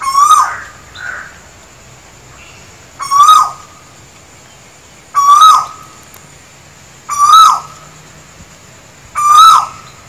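Male Asian koel giving its loud "koho" call five times, about two seconds apart, each note rising in pitch. A fainter call follows just after the first.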